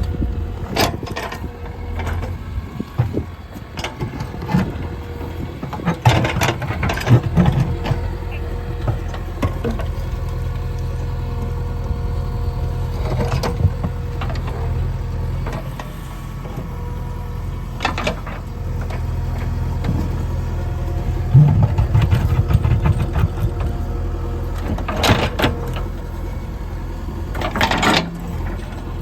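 JCB 3DX backhoe loader's diesel engine running steadily, with sharp knocks and clanks every few seconds from the machine working stones, the loudest near the end.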